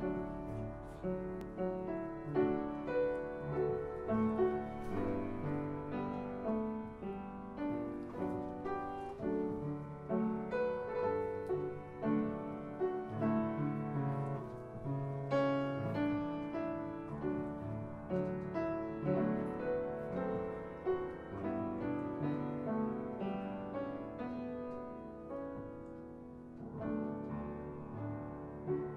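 Background piano music, a steady run of melodic notes.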